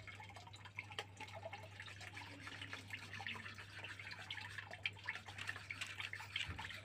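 Faint, scattered light clicks and ticks over a steady low hum.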